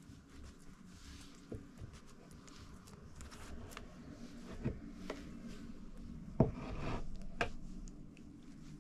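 Soft rubbing and squishing sounds of pide dough being worked by hand with egg wash, with a few light clicks and a sharper knock about six and a half seconds in.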